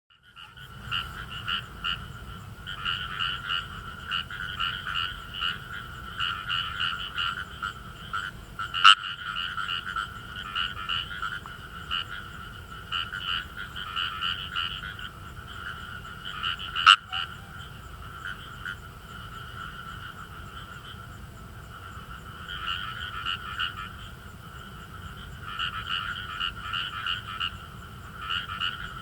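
Indian rice frogs (Fejervarya kawamurai) calling in a chorus: quick runs of short, fine croaks ('gue-gue') in bouts, easing off for a few seconds in the middle. Two sharp clicks sound about 9 and 17 seconds in, over a steady low rumble.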